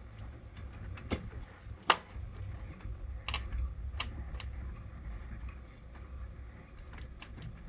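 Scattered metal clicks and knocks from fitting the alternator's bottom mounting bolt, the loudest about two seconds in, over a low rumble.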